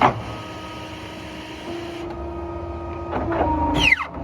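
Programmable paper guillotine cutter at work: a knock at the start, a steady motor hum with a held tone through the middle, and a quick falling whine near the end.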